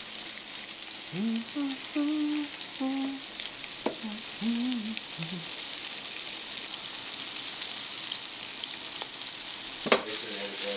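Breaded trout fillets frying in hot oil in a nonstick skillet, with a steady high sizzle. A person makes a few short voiced notes about a second in, and there is a sharp knock near the end.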